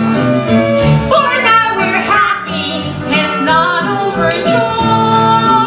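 Musical theatre ensemble singing with instrumental accompaniment, the voices settling into a long held note near the end.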